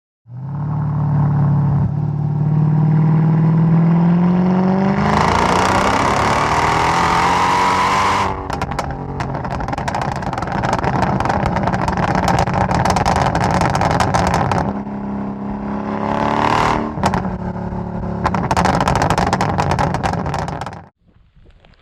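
Mercedes-Benz E55 AMG's supercharged 5.4-litre V8 pulling hard, its note climbing steadily in pitch. About eight seconds in the throttle lifts and the exhaust crackles and pops on the overrun. A shorter second pull is followed by more pops and bangs, then the sound cuts off suddenly.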